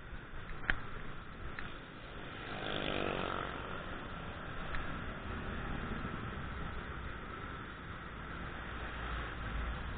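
Small motorcycle engine running on the move, heard from the bike under wind rush and road noise, with surrounding traffic. An engine note rises briefly about three seconds in, and there are a few light knocks in the first half.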